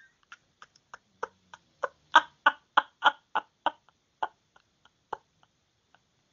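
A steady run of light, sharp taps, about three a second, growing louder and then fading away.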